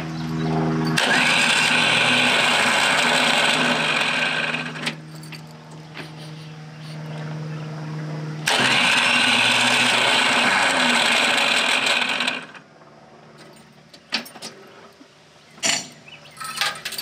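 Starter of a Ford 3000 tractor cranking in two bursts of about four seconds each, a loud grinding whir that cuts off abruptly each time. The starter's drive gears are worn and chewed up, and the tractor does not keep running.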